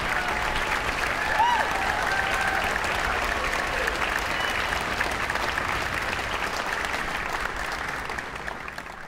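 Audience and orchestra applauding, a dense steady clapping with a couple of brief cheering whoops in the first two seconds, fading down near the end.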